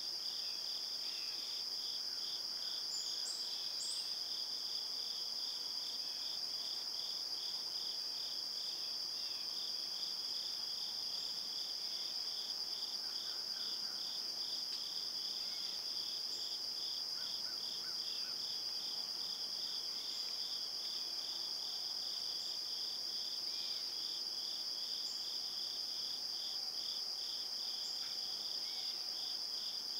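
Insects singing in a steady chorus: one unbroken high trill, with a second insect pulsing below it about twice a second.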